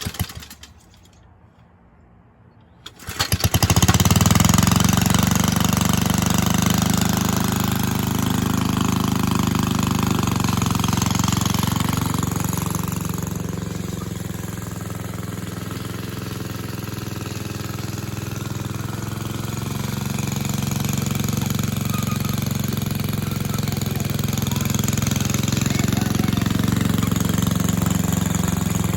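The 2.5 hp Briggs and Stratton engine of a 1961 Cooper Klipper reel mower catching about three seconds in after a brief burst at the start, then running steadily. Its level dips around the middle and rises again.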